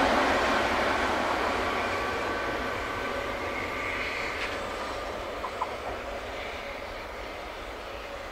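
SNCF TGV Duplex double-deck high-speed train running away into the distance after passing at speed, its steady rushing noise fading evenly.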